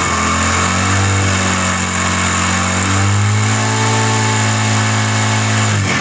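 CD70-type 70cc single-cylinder four-stroke motorcycle engine running close up, its revs rising a little about halfway and falling away near the end. It carries a noise from inside the engine that the mechanic puts down to a noisy, stretched timing chain.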